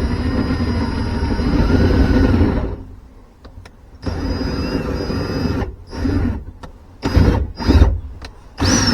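Cordless power drill running under load for nearly three seconds, then a second shorter run and several short trigger bursts.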